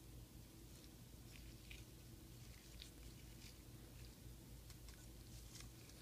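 Faint crackling and rustling of a disposable three-ply face mask being handled and unfolded, a scatter of small clicks over a low steady hum.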